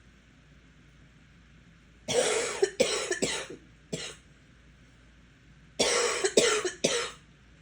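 A person coughing in two fits, the first about two seconds in and the second near the end, each a run of three or four coughs. It is an illness cough that the uploader ties to sinus trouble.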